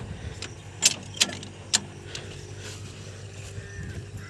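A few sharp clicks and knocks, about three in the first two seconds, as the tractor's controls are handled with the engine not yet running, over a faint steady hum.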